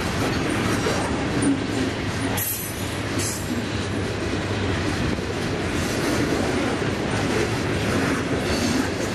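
Freight train tank cars rolling past close by: a steady rumble and clatter of steel wheels on the rails.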